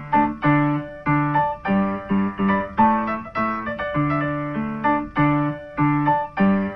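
Background piano music: a gentle melody of single struck notes over repeating bass notes, each note fading after it is played, in a steady, even rhythm.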